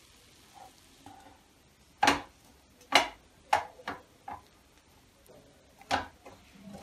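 A wooden spatula knocking against a nonstick pan while stirring puffed rice: a handful of short, sharp knocks, the first about two seconds in.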